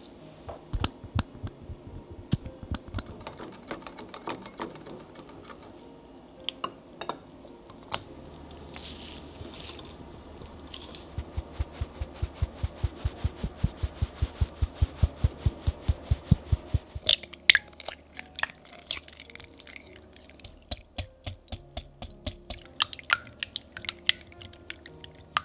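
Baking sounds in three parts. First a utensil clinks in a small glass bowl as milk and oil are mixed. Then cake flour is sifted, the sieve tapped in rapid, even soft knocks for several seconds, and finally a balloon whisk beats eggs in a glass bowl, its wire tines clicking against the glass.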